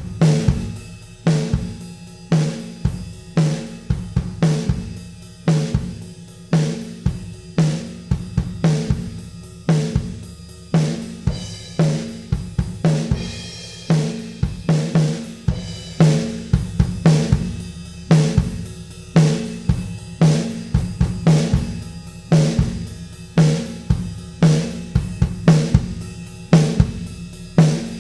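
Recorded drum kit playing a steady groove of kick, snare, hi-hat and cymbals, heavily compressed on the drum bus by the Acustica Audio ARCTIC compressor.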